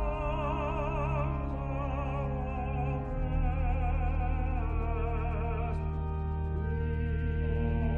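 A large mixed choir singing a festival anthem in full voice, the upper voices wavering with wide vibrato over long-held low notes. The low chord shifts about three seconds in.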